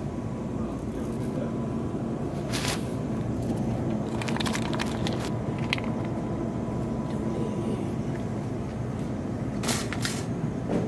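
Supermarket background noise: a steady low rumble and hum, with a faint high tone and a few brief rustling or clattering noises, one about two and a half seconds in, a cluster around four to five seconds, and two near the end.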